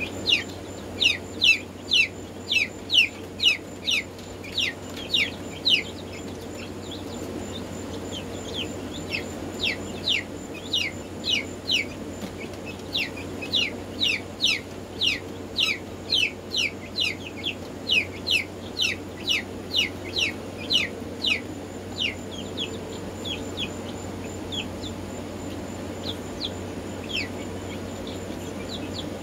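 Black Marans chickens peeping: a long series of short, high calls, each falling in pitch, coming about two a second in runs. They are loudest near the start and fade to scattered faint peeps near the end, over a steady low hum.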